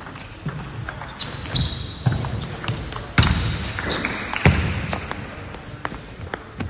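Table tennis rally: the celluloid-type ball clicking off bats and table at an irregular pace, with a few heavier footfalls and brief high shoe squeaks on the sports-hall floor as the standing player moves.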